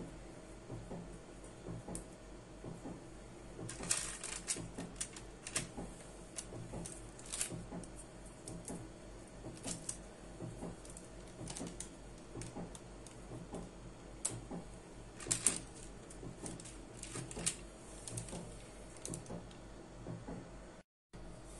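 Parchment baking paper crinkling and rustling, with scattered light clicks and taps as twisted puff pastry strips are picked up and laid on a lined baking tin. Louder crinkles come about four seconds in and again about fifteen seconds in, over a faint steady hum.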